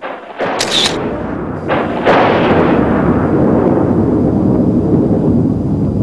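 Two sharp cracks within the first two seconds, then a loud, steady rumble that keeps going.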